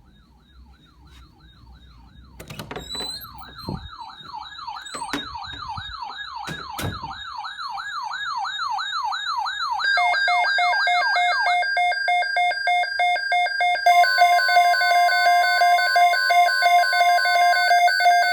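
Electronic siren wailing rapidly up and down, about two sweeps a second, with a few heavy thumps in its first half. About ten seconds in it gives way to steady layered electronic alert tones pulsing rapidly, with a further steady tone joining a few seconds later.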